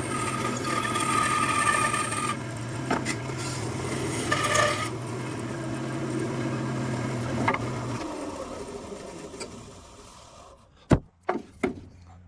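A motor-driven machine running with a steady hum and a rasping sound, switched off about eight seconds in and winding down, followed by three sharp knocks near the end.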